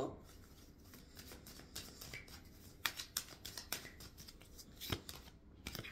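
Tarot cards being handled and drawn from the deck: faint scattered clicks and snaps of card on card, with a few sharper ones about three and five seconds in.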